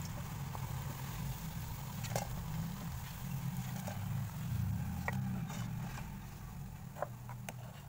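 Pakoras frying in a kadhai of hot oil as a metal spoon lifts them out, clinking against the pan a few times, over a steady low rumble.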